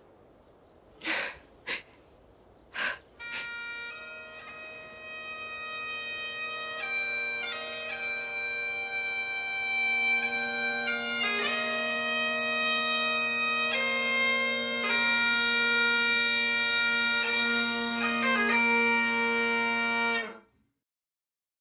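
Bagpipes: a few short squawks at the start, then a steady drone under a slow chanter melody that grows louder and cuts off suddenly near the end.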